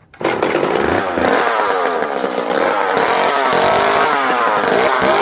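Vintage JoBu SL2 34cc two-stroke top-handle chainsaw catching on a single starter-cord pull, then running loudly with its revs wavering up and down.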